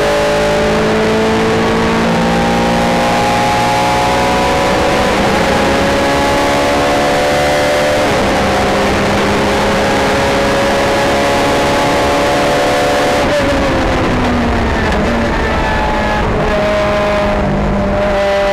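Race car engine heard from inside the cockpit, running hard at speed: its note climbs slowly under acceleration, falls as the car slows about two-thirds of the way through, then pulls up again near the end.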